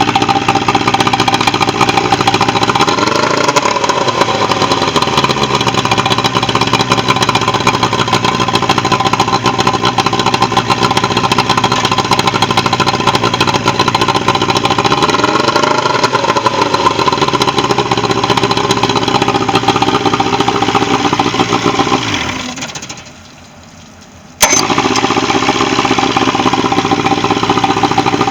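Pontoon boat's outboard motor running, revved up and back down twice. About 22 s in it winds down, then about two seconds later it is running again at full level.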